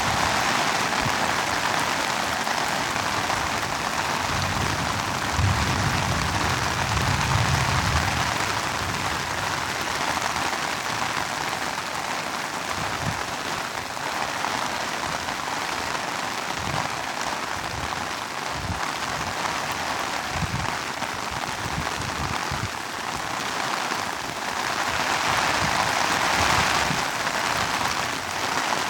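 Heavy rain falling steadily, with a low rumble between about five and eight seconds in.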